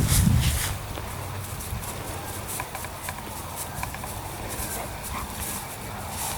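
A dog moving about: a louder, low rustling stretch in the first moment, then faint scattered clicks and taps over a steady low background.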